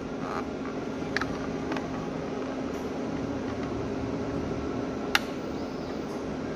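Steady fan hum, with a few sharp plastic clicks, the loudest about five seconds in, as a substrate bottle is handled and fitted into the analyzer's loading slot.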